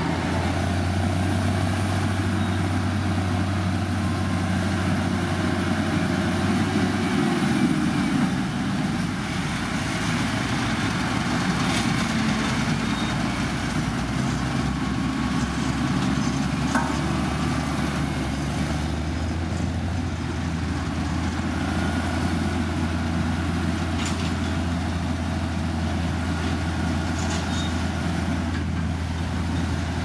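Diesel engines of heavy road-construction machinery running, a steady low drone that changes pitch about seven seconds in and again near twenty seconds in, with a few faint clicks on top.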